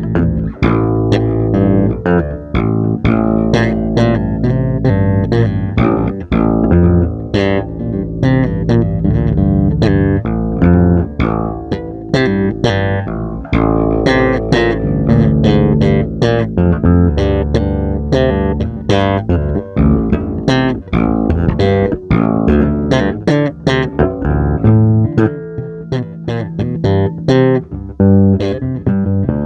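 Guitar played as a continuous, improvised stream of plucked notes with strong deep bass notes, noodling in search of musical parts.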